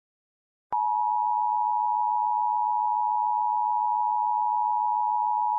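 Emergency alert attention tone: a single steady electronic tone that starts abruptly, with a click, just under a second in and holds unchanged.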